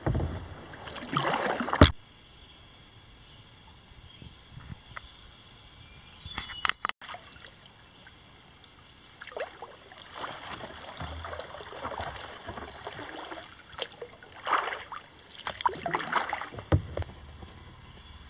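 Paddle strokes in the calm water of a flowage, with splashes and drips. A few strokes in the first two seconds, then a quiet spell, then a run of strokes through the second half.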